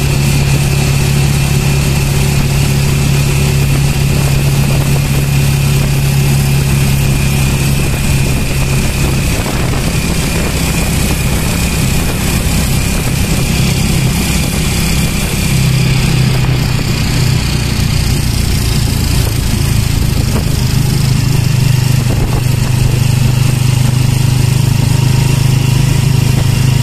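Small motorcycle engine running steadily, heard close up from on board, its pitch dipping about nine seconds in and rising again around fifteen seconds as the speed changes.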